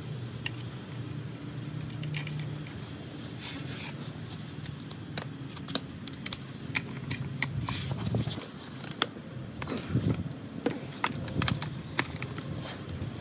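Hand ratchet and torque wrench clicking in irregular runs, with small metal clinks, as nuts are run down on a wheel-stud installer to pull new press-in lug studs through the hub. The clicks come thickest in the second half.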